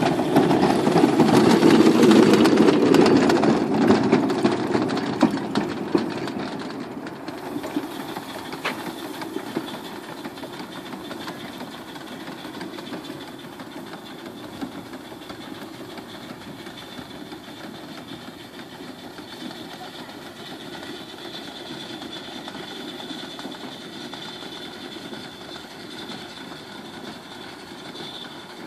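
Steam speeder with a 3-inch bore by 3-inch stroke steam engine running on the rails with a fast mechanical beat. It is loud as it passes close in the first few seconds, then fades as it moves off down the track and runs on steadily in the distance.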